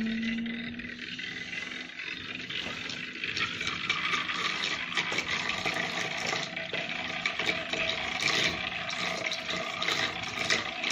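Liquid in a glass beaker churning and splashing as a magnetic stirrer's stir bar spins it at about 1700 rpm, a steady watery rushing that grows louder about three seconds in.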